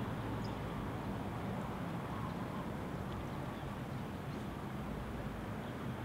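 Steady outdoor ambience: a low, even rumbling wash with no clear source, with a few faint, brief high bird chirps scattered through it.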